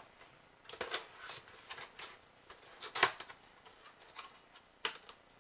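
Hands handling a cardboard box and working its tucked end flap loose: scattered light scrapes and taps, the loudest about three seconds in.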